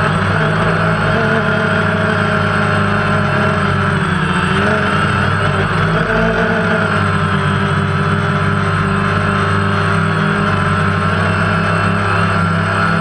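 Multirotor drone's electric motors and propellers running steadily, a constant hum and whine with pitch that wavers slightly as the throttle shifts.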